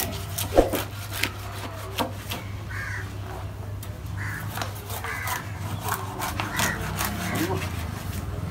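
A large curved knife chopping and scraping through a tuna on a wooden block, with sharp knocks of the blade on the wood, the loudest about half a second in. Crows caw several times in the background from about three seconds on.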